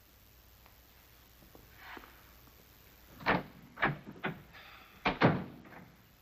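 A door shutting and a few footsteps on a hard floor: five knocks and thuds over about two seconds, the loudest pair near the end.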